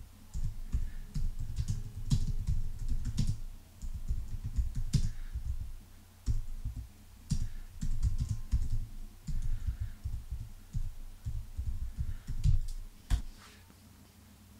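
Typing on a computer keyboard: a long run of irregular keystrokes with a few short pauses, stopping about a second before the end.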